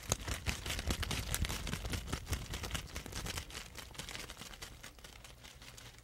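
Crisp crackling and snapping of lettuce leaves being crumpled and torn by hand close to a microphone, a home-made foley effect. The crackle is loudest for the first few seconds and then fades as the microphone is drawn away.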